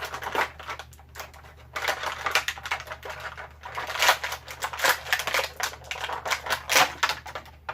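Rapid clicking and crackling of stiff plastic toy packaging being handled and pulled apart, in clusters with short pauses, stopping suddenly near the end.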